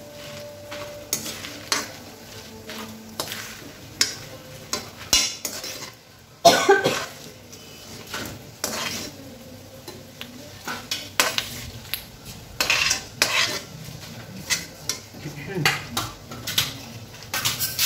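A metal spoon scraping and clinking against an aluminium kadai as fried dried red chillies are scooped out, over the sizzle of hot oil. There are many short scrapes and knocks, with a louder one about six and a half seconds in.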